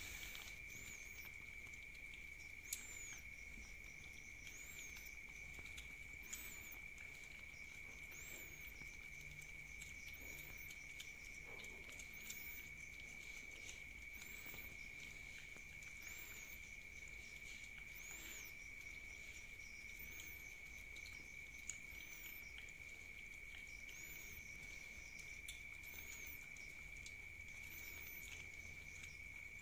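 Several cats eating wet food from a hand-held pouch: faint licking, chewing and lip-smacking with occasional small clicks. A steady high-pitched trill of night insects runs underneath, with a fainter chirp repeating about every second and a half.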